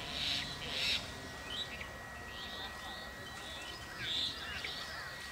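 Birds chirping in many short calls, the loudest near the start and about four seconds in, over a low steady rumble and a thin steady high tone.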